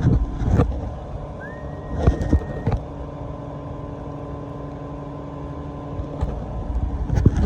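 A large engine running steadily with a low hum, most likely the diesel engine of the crane working the tree job. Heavy low rumbling comes at the start and again near the end, and a brief high whine rises and holds about a second and a half in.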